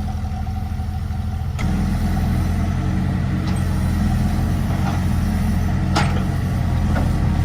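Excavator diesel engine running steadily, picking up load and getting louder about a second and a half in. A sharp metallic knock comes about six seconds in.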